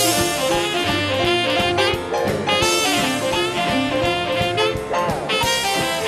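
Live western swing band playing an instrumental break, a saxophone carrying the lead over guitars and drums, with a downward slide about five seconds in.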